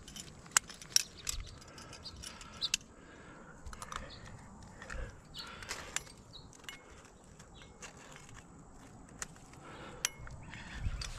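Metal climbing gear on a harness (carabiners, cams and nuts) clinking and jingling in short, irregular clicks as the climber moves up a crack.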